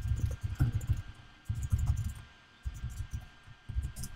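Typing on a computer keyboard: quick runs of key clicks, each with a dull low thump, broken by short pauses.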